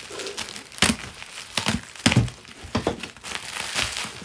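Bubble wrap crinkling and crackling as it is cut with a utility knife and pulled apart by hand over a cardboard box. Several sharp cracks come through, the loudest about a second in and about two seconds in.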